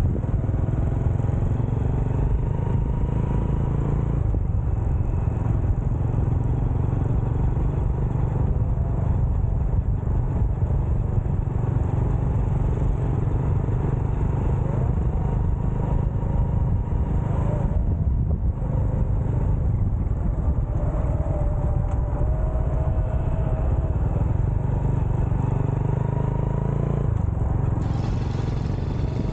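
Motorcycle being ridden: steady engine and road noise with low rumbling wind on the rider's microphone.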